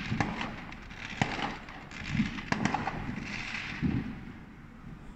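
Fireworks exploding: scattered sharp cracks and crackling with a few dull thuds, dying down near the end.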